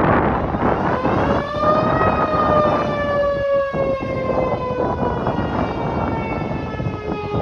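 Outdoor warning siren wailing: its pitch rises about a second in, then slowly falls and fades, over a steady rushing noise.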